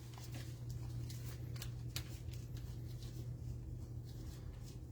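Trading cards being handled and flipped through: soft scattered clicks and rustles of card stock, over a steady low hum.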